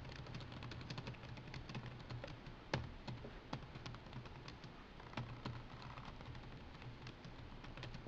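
Fingers typing on a laptop keyboard: a quick, uneven run of soft key clicks, with one louder key strike about three seconds in. A low steady hum sits underneath.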